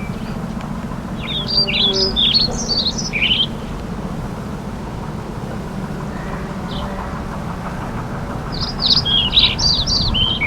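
A songbird singing two quick, warbling phrases of chirps, one about a second in and another near the end, over a steady low hum.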